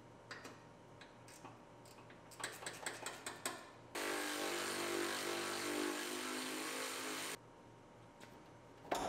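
Cordless impact driver running for about three and a half seconds as it backs a bolt out of a truck door, after several light clicks of handling. It cuts off abruptly, and a single knock follows near the end.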